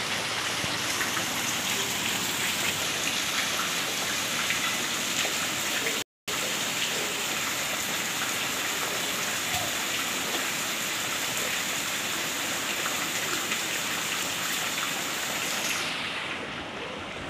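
Heavy rain falling in a steady hiss. The sound cuts out completely for a moment about six seconds in, and it is a little quieter near the end.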